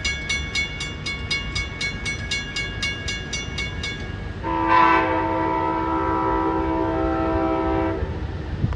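A bell rings in rapid, even strokes and stops about four seconds in. Then the lead locomotive of Amtrak train 41 sounds its horn in one long chord of about three and a half seconds, over the low rumble of the passing train.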